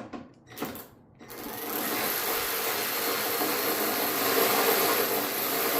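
Power drill-driver with a 10 mm socket running steadily, spinning off a tail light mounting nut. A few light clicks come first as the socket goes on, and the motor starts about a second in.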